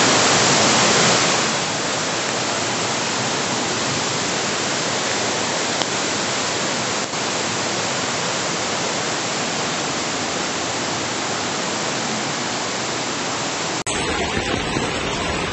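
Floodwater rushing through a street in a torrent, a steady, dense rush of water. It is a little louder in the first second or so, and near the end the sound cuts abruptly to a patchier background.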